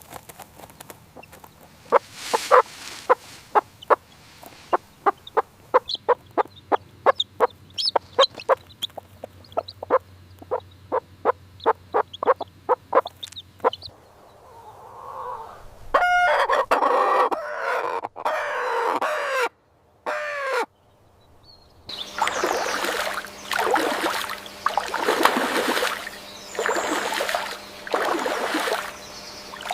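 Chickens clucking in a rapid run of short calls, then, from about halfway through, a different set of pitched calls that sweep down in pitch, followed by a steady series of harsher calls about a second long.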